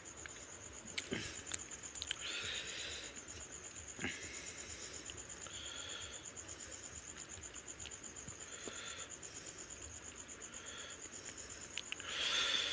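Hand-eating fish head curry: chewing and fingers squishing through curry-soaked fish head and rice, pulling it apart, in short wet bursts with a few sharp clicks, the loudest near the end. A steady high-pitched trill runs underneath throughout.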